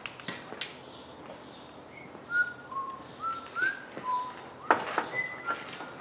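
Sharp metal clinks of hand tools and the tractor's PTO stub shaft being worked on, the loudest a ringing clink about half a second in and another knock near the end. Between them come short whistled notes at changing pitches, someone whistling a bit of a tune.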